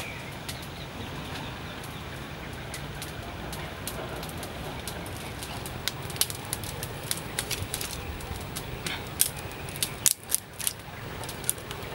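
Steady outdoor background noise with a scattering of sharp clicks and taps in the second half, loudest about nine to ten and a half seconds in, from hands handling raw beef and banana leaves.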